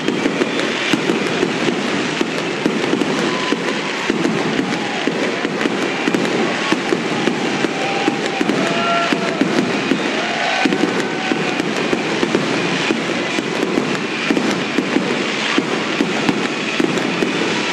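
Aerial fireworks display: many bangs and pops in quick succession over continuous crackling, with a few short whistling tones about halfway through.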